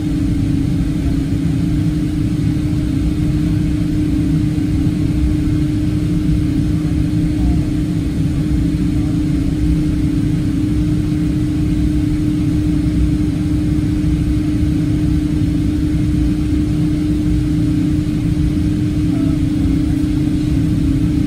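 Cabin noise inside a Boeing 777-200 taxiing: a steady low rumble with a constant droning hum from the engines running at taxi power.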